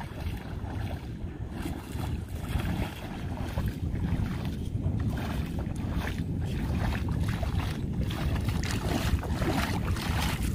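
Wind buffeting the microphone, with the sloshing splashes of legs wading through shallow water, the splashing growing louder in the second half as the wader comes closer.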